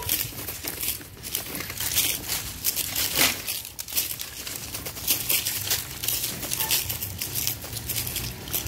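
Footsteps crunching through dry fallen leaves over railway ballast and sleepers, a steady walking pace of about two steps a second.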